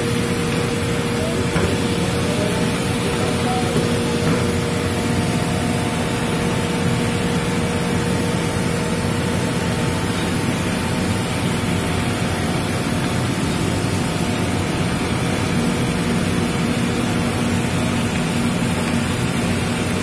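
Pneumatic (compressed-air) bucket vacuum cleaner running steadily while sucking up debris through its hose: a constant rush of air with a faint steady tone under it.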